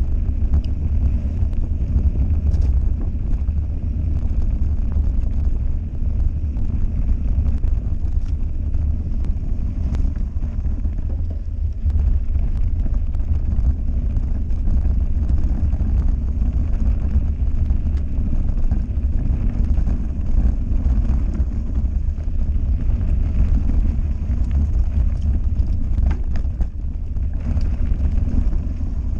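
Wind buffeting an action camera's microphone during a mountain bike descent on a dirt trail, a steady heavy rumble mixed with the noise of tyres on loose gravel. Occasional sharp clicks and rattles from the bike over the rough ground.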